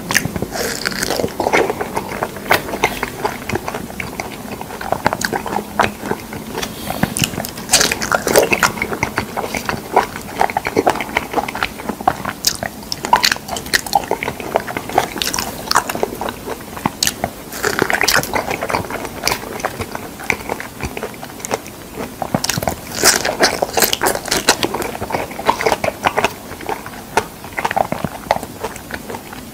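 A person biting into and chewing ripe figs close to the microphone: soft, wet mouth sounds with many small clicks and smacks.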